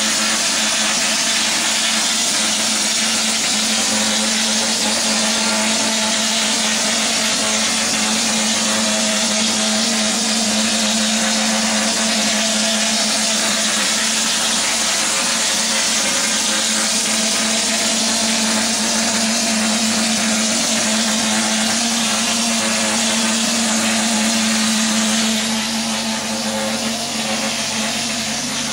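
Spray polyurethane foam insulation rig running: a steady hiss with a constant low hum. The sound shifts slightly near the end.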